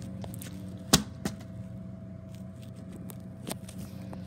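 A sharp click about a second in, a smaller one just after it, and a lighter knock later, over a steady low room hum.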